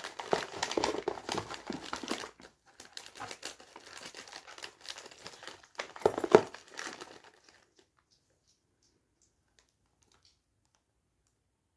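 Plastic candy bag crinkling as it is handled and torn open, loudest just after six seconds in; the last four seconds are near silence.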